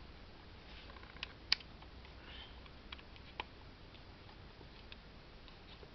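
Scattered faint clicks and ticks from a Soviet FED rangefinder camera being handled, with a sharper click about a second and a half in and a short scraping sound just after two seconds.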